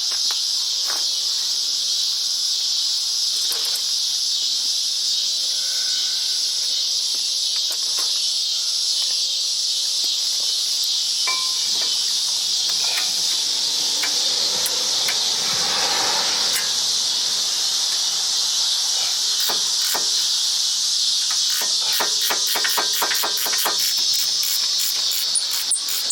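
Steady high-pitched insect chorus, with scattered clicks and knocks throughout and a fast run of clicks near the end.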